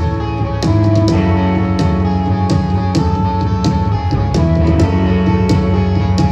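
Rock band playing live with no vocals: electric guitars holding ringing chords over bass guitar and a drum kit, heard through the venue's PA.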